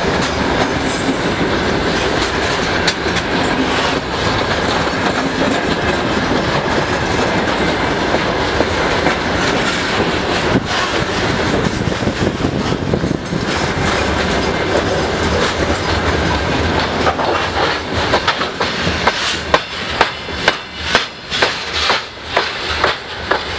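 Freight train of covered grain hopper wagons rolling past at close range: a steady rumble and rattle of wagons and wheels. In the last few seconds, as the tail of the train passes, the sound breaks up into a distinct clickety-clack of wheelsets over the rail joints.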